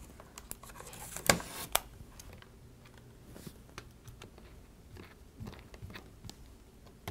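Light clicks and taps of fingers handling a MacBook's hard drive as it is slid out of its bay, with one louder short scrape about a second in.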